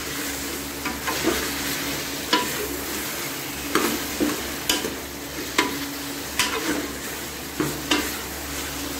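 Meat and chopped tomatoes sizzling in an aluminium pressure-cooker pot while a metal spoon stirs them, scraping and knocking against the pot about once a second. The tomatoes have just gone in and are cooking down into the meat.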